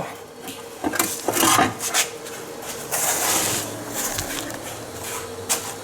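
Irregular knocks, clicks and scraping as the freshly removed inner CVT housing and nearby parts are handled and shifted about. There is a longer scraping rub about three seconds in.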